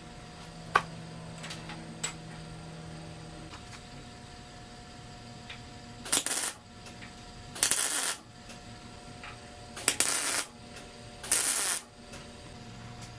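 Two sharp clinks of small steel brackets set down on a steel welding table. Then four short bursts of MIG tack welding from a Miller welder, each under a second long and a second or two apart.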